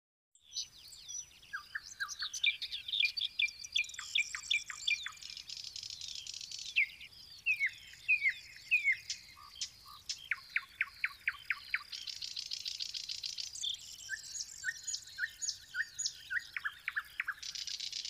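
A songbird singing a long, varied song of whistled gliding notes, runs of quick repeated notes and several buzzy trills.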